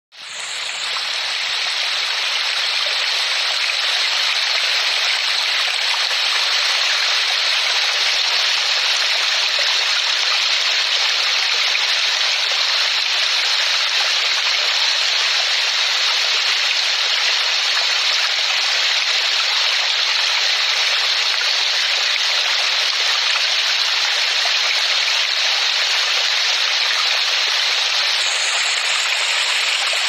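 A small stream cascading over rocks: steady rushing, splashing water that fades in over the first second or so and then holds even.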